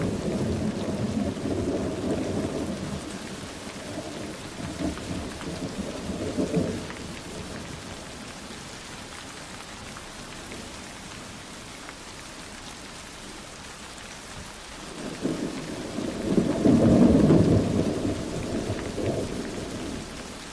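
Steady rain falling, with two long rolls of thunder: the first breaks suddenly at the start and rumbles for about seven seconds, the second builds up near the end, swells and dies away.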